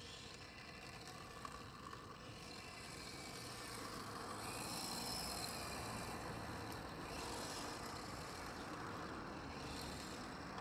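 Electric radio-controlled drift car on a D-Like LP-86 chassis driving on asphalt: a faint motor whine and the hiss of its tyres sliding, growing louder about halfway through as it passes close, then easing off a little.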